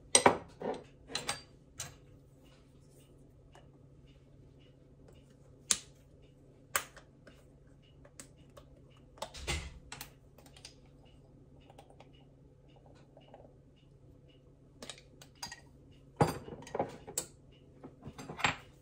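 Scattered light clicks and taps as a spice jar of cinnamon is handled over a small glass bowl of sugar. There is a soft thud about nine and a half seconds in and a quick run of taps near the end, over a faint steady low hum.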